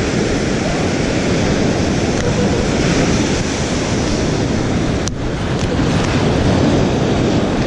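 Surf washing in and out over the sand at the water's edge, a steady loud rush, with wind buffeting the microphone.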